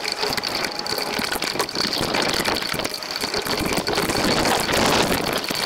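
Heavy rain pelting a waterproof GoPro at ground level, with runoff water washing over the camera: a dense, steady hiss packed with drop hits, and a thin high tone running under it.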